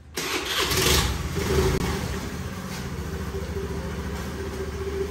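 Motorcycle engine running as the bike rides off, a steady engine note that is loudest about a second in.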